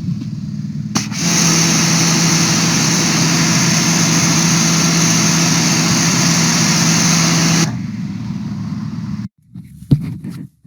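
Sun Joe SPX3500 electric pressure washer running, its motor-driven pump humming under the hiss of the spray. It cuts out at the start, starts again with a click about a second in and runs steadily. Near the end it stops, and a sharp knock follows.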